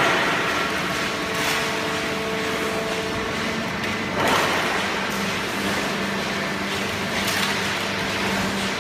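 Hydraulic baler for shredded paper running: a steady machine hum with held tones, and a hiss that swells about every three seconds.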